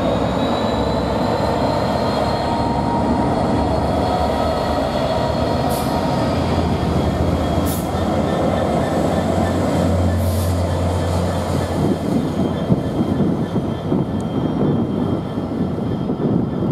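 GBRf Class 66 diesel-electric locomotive passing close by, its two-stroke EMD diesel engine giving a steady drone that is strongest between about six and twelve seconds in, with a few short high wheel squeals. Toward the end, the rumble and clatter of the train's wheels dominate as the rear locomotive follows.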